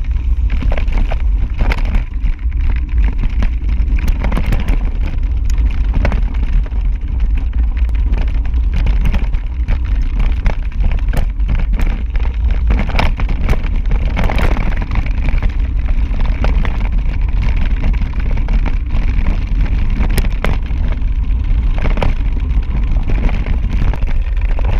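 Mountain bike rolling fast over a loose, rocky dirt trail: a constant low rumble and buffeting of wind on the microphone, with frequent rattles and clicks from tyres on gravel and the bike shaking over rocks.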